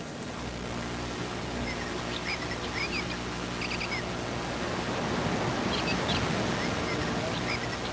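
Steady hiss and low hum from a cheap security camera's recording. Over it come two clusters of short, high chirps, a few quick notes each, one in the first half and one near the end.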